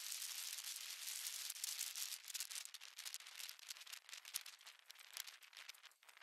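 Wind rushing over a camera microphone on a moving electric unicycle: a steady hiss with fine crackles of buffeting, growing fainter after about two seconds in.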